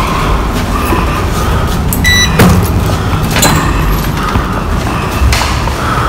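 Glass door with a metal pull handle being handled and pushed open, with a few knocks, over a steady low rumble. A short electronic beep sounds about two seconds in.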